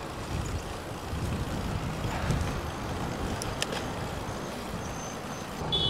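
Steady low rumbling outdoor noise, with a couple of faint clicks about three and a half seconds in and a short high-pitched squeal starting near the end.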